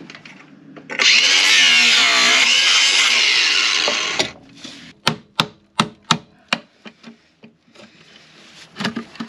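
Cordless angle grinder cutting through a steel nut on a through-bolt for about three seconds, its pitch wavering under load, then stopping. Then about seven sharp hammer blows on a chisel, a couple a second.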